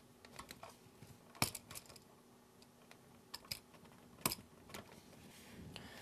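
A handful of sharp little clicks and taps, irregularly spaced: needle-nose pliers and copper wire knocking against a new electrical outlet's metal terminals as the wire is bent and connected.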